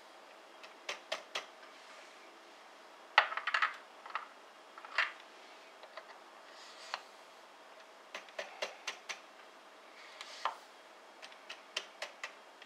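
Powder measure being worked to charge rifle cases with powder: sharp light clicks and taps, often two or three together, from the measure's handle, drop tube and brass cases, with a louder rattle of clicks about three seconds in and short soft hisses between them.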